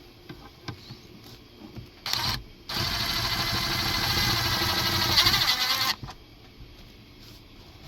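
Electric drill whirring: a short pull of the trigger, then about three seconds of steady running as it drives a screw into the plastic skull mask, the pitch sagging slightly under load near the end before it stops.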